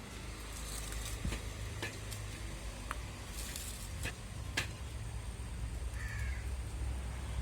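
A bird calling once, about six seconds in, over a steady low hum with a few sharp clicks.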